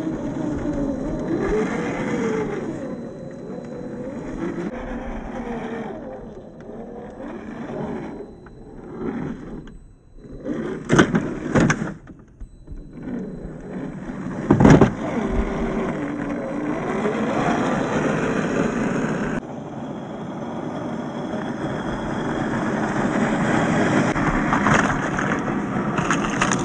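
Radio-controlled 1/10-scale crawler's brushed electric motor and geared drivetrain running, with a whine that rises and falls as the throttle changes. Around the middle there are a few sharp knocks and scrapes as the chassis and tyres strike the terrain.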